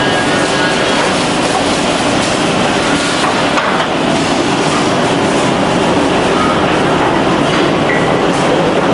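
FK-610BL semi-automatic finger joint machine running: a steady, loud mechanical din from its motors and feed, with scattered knocks.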